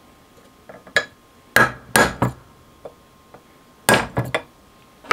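Hammer blows on a steel pin punch, driving a tapered pin out of an AR-15's A2 front sight base: two quick groups of three sharp strikes, with faint clicks of the punch being set on the pin before and between them.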